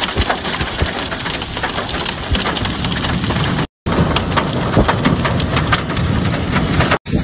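Large hailstones and heavy rain pelting a wet road: a dense hiss full of sharp ticks from individual stones striking. It cuts out for a moment a little past halfway, then carries on.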